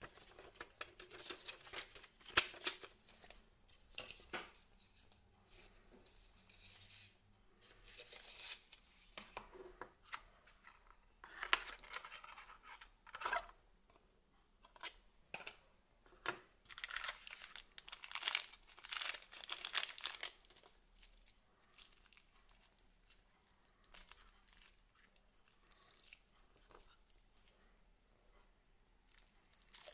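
Paper and packaging being handled: a folded paper instruction leaflet rustling, then a card insert and a small plastic parts bag crinkling, with small taps. The rustling comes in irregular bursts and thins out over the last third.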